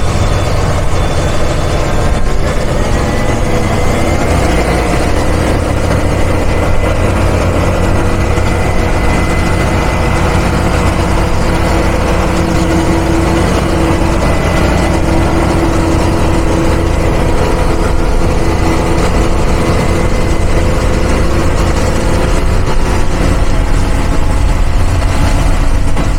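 Farm tractor's diesel engine running steadily under load while ploughing.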